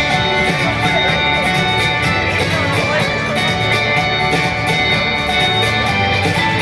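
Music with plucked and strummed guitar over a steady beat.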